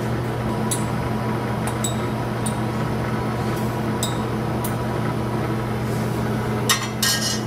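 Steady low electrical hum from the plating-tank equipment, with light glass clinks about once a second as a pipette is handled among the tanks, and a brief louder clatter near the end.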